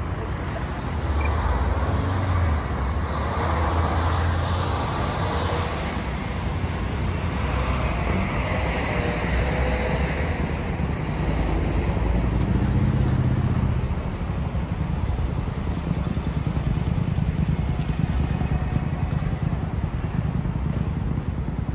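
City street traffic: a steady din of cars and other vehicles running by, with engine rumble swelling louder a couple of times as vehicles pass close.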